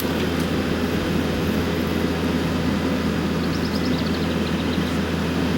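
Skid steer's diesel engine running steadily under work. About three and a half seconds in there is a brief run of faint high chirps that fall in pitch.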